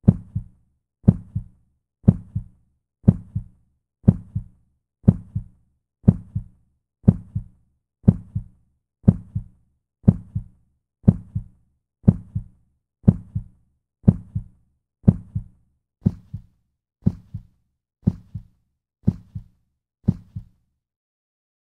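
Heartbeat: a steady double lub-dub thump about once a second. The last few beats grow fainter, and it stops about twenty seconds in, as a heart falling silent.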